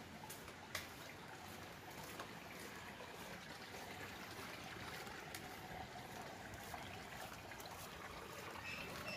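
Faint, steady trickle of water running in an open drainage gutter, with a few light ticks and some short high chirps near the end.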